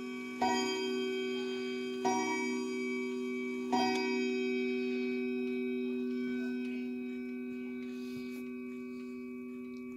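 Howard Miller wall clock's hammers striking its chime rods on one repeated note, the pattern of a clock counting the hour. Three evenly spaced strikes come about a second and a half apart, each ringing on, and the last fades slowly.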